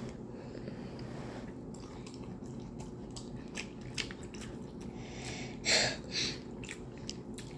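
Close-up mouth sounds of eating fufu and chicken stew: wet chewing with many small lip-smacking clicks. There are two louder wet smacks, one just before 6 seconds in and one shortly after.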